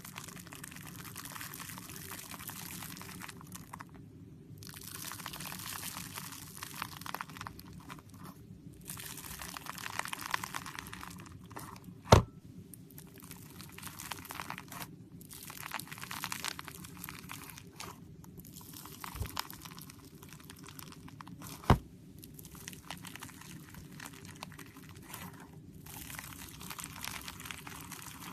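Slime being squeezed and worked by hand, crackling with many small air-bubble pops in spells with short pauses between. Two much louder sharp pops stand out, about twelve seconds in and again about ten seconds later.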